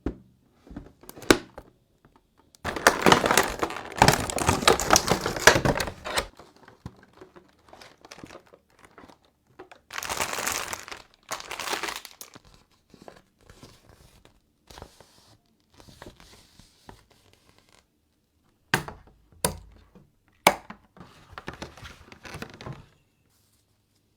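Crinkling and tearing of a surprise doll's packaging being opened by hand, in two long stretches, then scattered light rustles and a few sharp clicks near the end.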